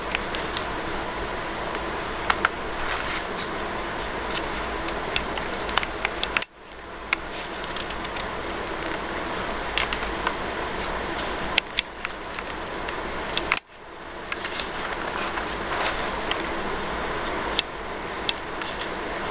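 Steady, fan-like hiss of room noise with scattered small clicks. Twice the sound drops out abruptly and fades back in over about a second.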